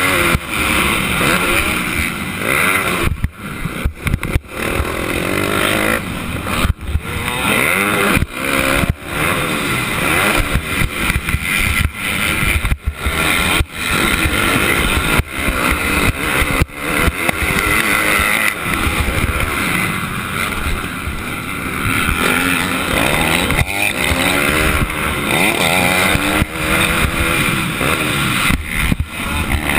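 Motocross dirt bike engine at race pace, heard from the rider's helmet: the revs climb and fall over and over as the throttle is worked, with many sudden short drop-offs where the throttle is chopped.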